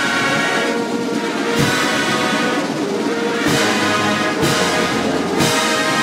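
Marching show band of trumpets, trombones and sousaphones, fitted with lefreQue sound bridges, playing sustained brass chords, with a few low drum strokes under the held notes.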